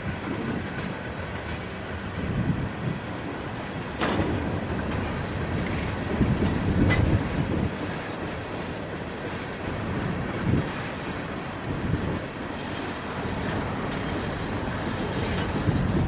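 Freight train cars rolling past, the wheels clacking over the rail joints with an irregular rhythm. Sharp clanks come about four seconds and seven seconds in.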